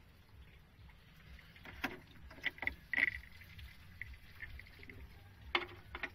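A steady low rumble, as of the 1990s Suzuki Carry's engine idling, with a handful of sharp clicks and knocks of handling about two, two and a half, three and five and a half seconds in.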